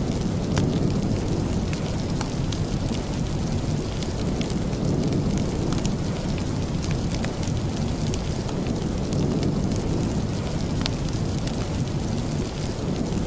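Steady rain with a deep, even undertone, mixed with the sparse sharp crackles of a wood fire in a fireplace.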